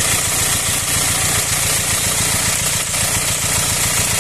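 Four-cylinder diesel engine with a rotary injection pump, idling steadily. The owner describes its sound as rough and loud since the engine was repaired after its timing chain snapped.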